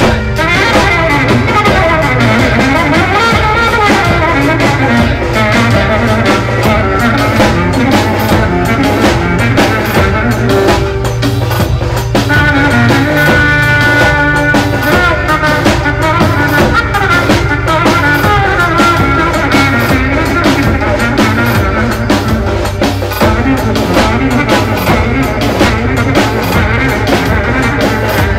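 Live Turkish Roman havası dance music: a trumpet plays the melody, with some long held notes, over a steady snare drum beat.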